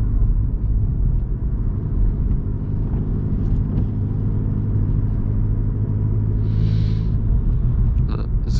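Engine and road rumble heard from inside the cabin of a Vauxhall Corsa cruising steadily at about 30 mph, with a brief hiss about six and a half seconds in.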